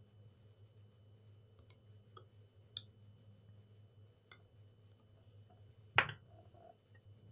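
Small metal tool clicking against the metal shell of a USB-C charger plug as it is probed for a way to pry it open: a handful of light, scattered ticks and one louder click about six seconds in.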